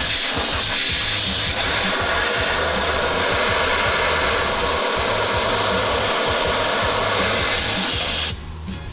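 Loud, steady rush of air from an electric blower motor, cutting off suddenly near the end, over faint background music.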